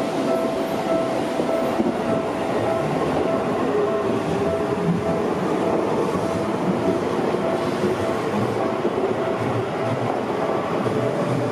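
Seibu 20000 series electric commuter train running past close by, with a steady rumble of wheels on rail and some clacking over the rail joints. A faint whine slowly falls in pitch as it goes.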